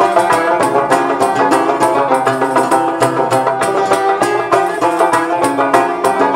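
Instrumental passage of Moroccan malhun music: an oud and other plucked strings playing quick runs of notes over a steady beat.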